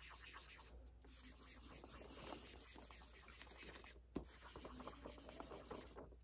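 Brown felt-tip marker scribbling back and forth on paper while coloring in a shape, faint, with brief breaks between bursts of strokes.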